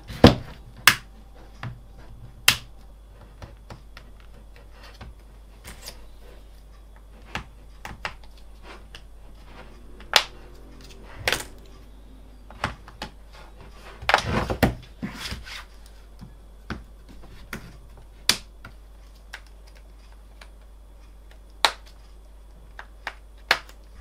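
Scattered sharp clicks and snaps, with a denser run of crackling about halfway through: the plastic retaining clips of a Samsung Galaxy Tab A (SM-T580) tablet's back cover popping loose as the cover is pried off.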